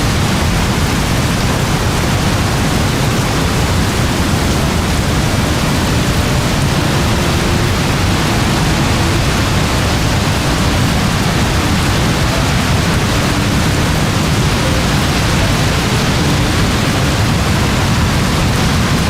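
Very heavy rain: a loud, steady, even hiss of downpour with no breaks or separate drops standing out.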